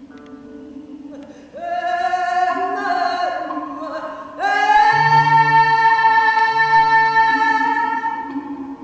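Music with singing: long held vocal notes over a steady low sustained note, with a louder held note from about halfway to near the end.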